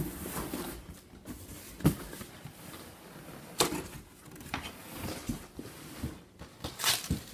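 Cardboard packaging and shredded-cardboard padding being handled while packing tape is worked off: soft rustling broken by a few sharp knocks and crackles.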